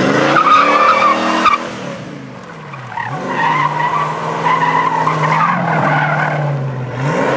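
TVR sports car doing donuts: the engine revs up and climbs in pitch, drops back about a second and a half in, then holds high revs with the rear tyres squealing as they spin, and revs up again near the end.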